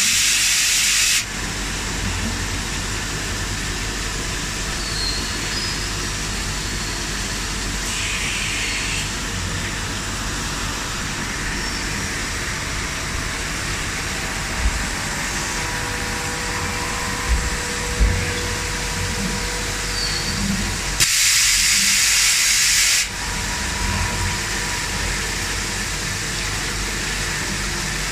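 1995 PORTA TRO-08-N10 rotary transfer machine running under power: a steady mechanical hum with a loud burst of hissing for about two seconds at the start and again about three-quarters of the way through, and a few low thumps in between.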